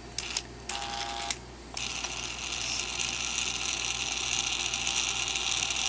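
Treadmill incline motor running, turning its plastic reduction gear and the threaded nut along the lead screw: two brief whirs in the first second and a half, then a steady high whine from about two seconds in, growing slightly louder.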